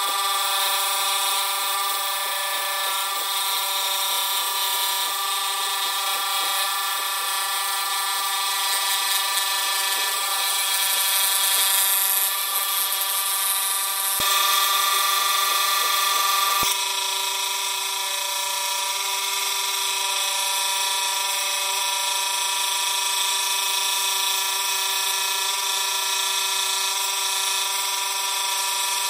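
Scroll saw running and cutting thin wood, a steady whine with a hiss above it that goes on without a break, with small jumps in level where the footage is cut at about 14 and 17 seconds in.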